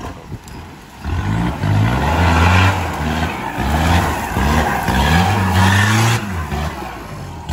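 Diesel engine of a lifted Toyota Hilux pickup revving hard under load as it drives off-road. From about a second in, its pitch climbs and drops several times as the throttle is worked.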